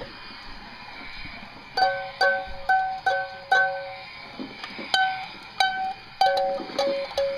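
Electronic tune from a children's push-along toy vacuum: a run of short, bright chime-like notes hopping between two pitches, a brief pause, then more notes.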